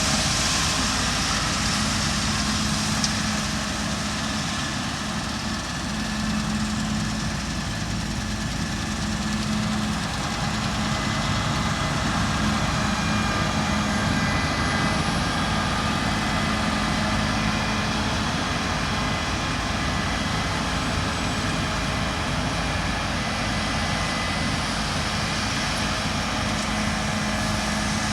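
Claas Lexion 7600 combine harvester running steadily while cutting beans, a constant machine noise with a steady hum.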